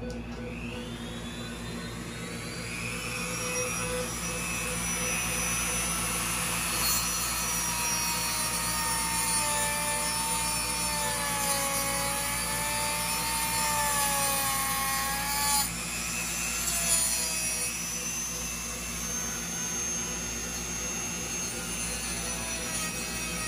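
Handheld rotary tool with a thin cut-off disc cutting through a beef shank bone ring lodged on a dog's lower jaw. It runs up to speed over the first few seconds, then a high whine with grinding that sags and wavers in pitch as the disc bites into the bone.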